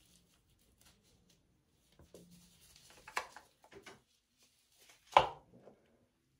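Faint rubbing and handling sounds from a clear plastic glove spreading cream over the face. A short sharp knock comes about three seconds in, and a louder one about five seconds in.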